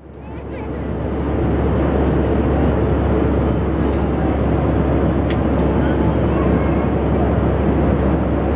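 Airbus A319 cabin noise in flight: a steady roar of engines and airflow with a deep drone, fading in over the first second or so. A single sharp click about five seconds in.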